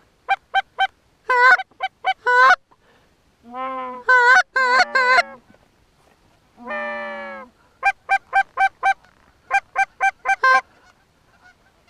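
Canada goose calling, loud and close: quick runs of three to five short honks and clucks, about four a second, broken by two longer drawn-out, wavering moans about four and seven seconds in. This is the rhythm of hunters' hand-held goose calls coaxing geese in to the decoys.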